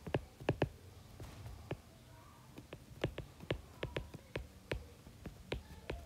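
Stylus tip tapping on a tablet's glass screen during handwriting: a string of irregular light clicks, a few each second.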